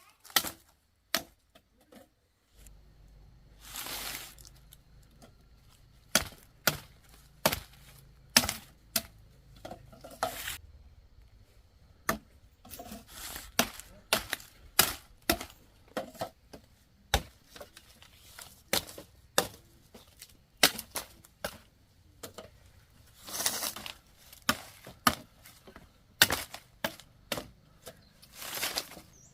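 A blade chopping with sharp, irregular strikes, about one or two a second, with a few short swishing rustles between them.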